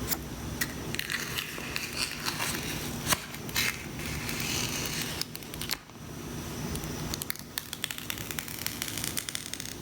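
Thin protective plastic wrap being peeled off a new iPhone X, crinkling and crackling with many small sharp clicks.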